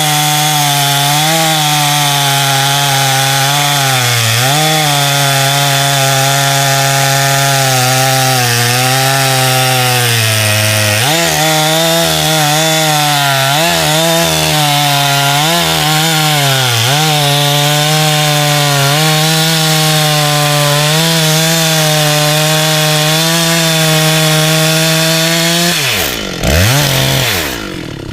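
Husqvarna 385XP, a big 85 cc two-stroke chainsaw with a 24-inch bar, running at full throttle while cutting silver maple. Its pitch dips several times as the chain loads up in the cut. Near the end the throttle is let off and the engine drops to idle, with one short blip of throttle.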